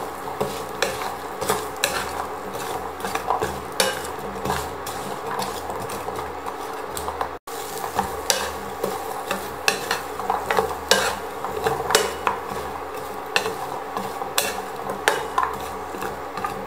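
A spatula stirring and turning pumpkin chunks in a nonstick frying pan, with irregular scrapes and knocks against the pan over a steady sizzle of garlic frying in oil.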